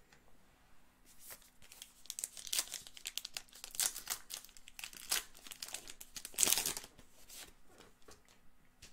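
Plastic wrapper of a baseball card pack being torn open and crinkled by hand: a run of crackling rustles, loudest a little past halfway, then quieter handling of the cards near the end.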